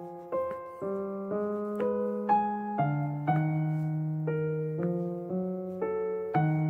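Background piano music: a gentle melody with a new note struck about every half second over held low notes.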